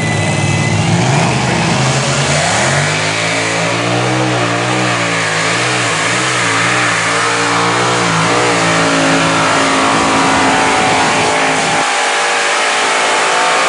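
Supercharged multi-engine modified pulling tractor at full throttle, dragging a weight-transfer sled down the track. The engine note climbs early on and wavers up and down through the middle of the pull. Its deep low end drops away near the end as the tractor reaches about 300 feet.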